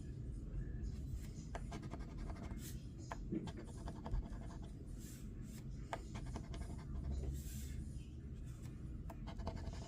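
Scratch-off lottery ticket being scratched, with short, irregular scraping strokes against the coating over a low background rumble.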